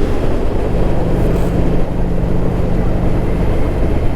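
A vehicle being driven: steady engine hum under continuous road and tyre noise.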